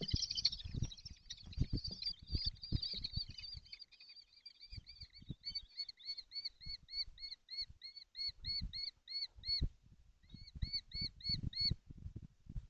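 Young kestrels calling: overlapping shrill chatter at first, then a steady run of repeated high 'kee' notes about three a second, with a short break near the end. Dull knocks and scuffling sound underneath.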